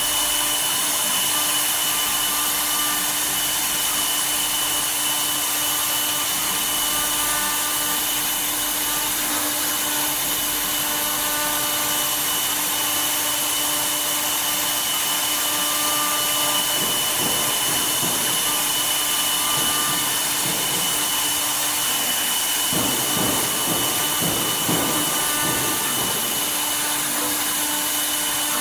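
Woodworking CNC router running, its spindle giving a steady whine with several constant tones as the bit cuts wood. A rougher, uneven cutting noise comes in twice in the second half.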